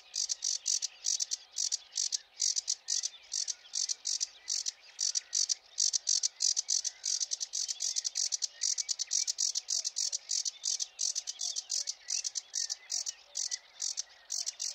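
Insect-like bird song: a steady, unchanging train of high, quick buzzing pulses, several a second, with softer varied bird song beneath.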